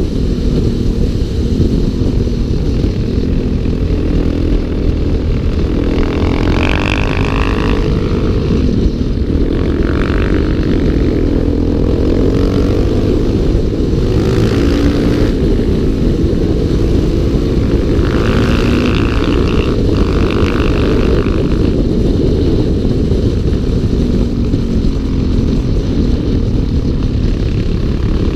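Single-cylinder four-stroke dual-sport motorcycle engine under way, heard from a helmet or bike-mounted action camera, its pitch rising and falling with the throttle over a heavy rumble of wind and road noise.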